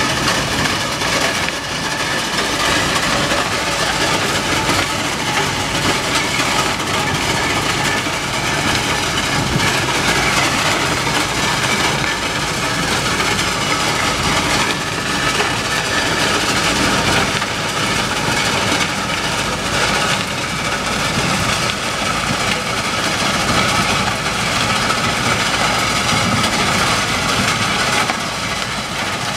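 Rail-mounted track-cleaning machine running along the track, its engine and cleaning head working the ballast in a loud, steady noise.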